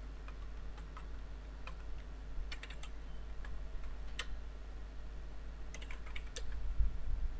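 Computer keyboard keystrokes, tapped singly and in short clusters of a few keys at a time as text is typed, over a faint low hum.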